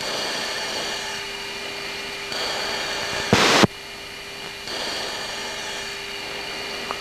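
Hiss and static from a cockpit radio recorded on the aircraft's HUD tape, with faint steady tones underneath. The hiss swells louder in stretches as the channel opens, and a short, loud burst of static comes about halfway through.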